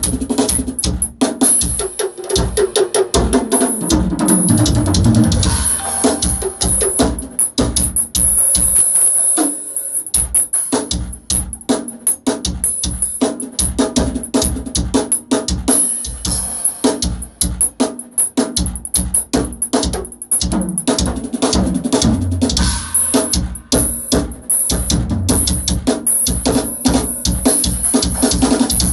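Acoustic drum kit played hard and fast: kick drum, snare and cymbal hits in dense patterns. About four to six seconds in a tom fill steps down in pitch, and there is a brief pause about nine and a half seconds in.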